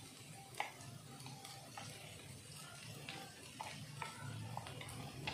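Scattered faint light taps and clicks as finely ground coconut is tipped from a dry grinder's steel jar into a clay pot, the jar knocking lightly against the pot and spatula, over a faint low hum.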